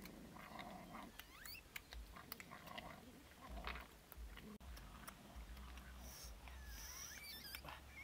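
Dogs eating meat scraps and bones from a woven basket, with soft crunching and chewing clicks, and a few faint high chirps.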